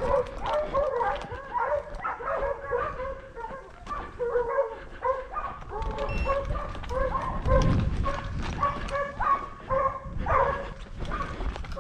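A pack of hunting dogs barking and yelping over and over, several short calls a second. The dogs are hunting wild boar.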